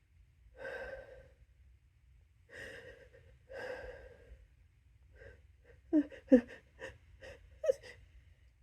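A person's gasping breaths as a sneeze builds while the nose is tickled to induce it: three drawn-in breathy gasps, then from about six seconds in a quick run of short, catching breaths.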